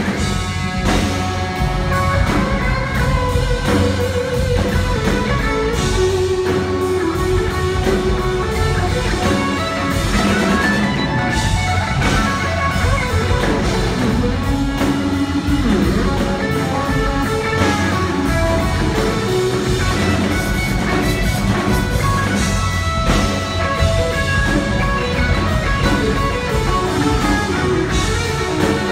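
Live rock band playing an instrumental passage: an electric guitar plays long held notes that bend in pitch, over a drum kit and bass.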